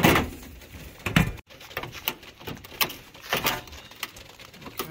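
A few separate knocks and clunks with short scrapes from the metal fan grille and fan motor assembly of an outdoor HVAC condenser being handled and lifted out.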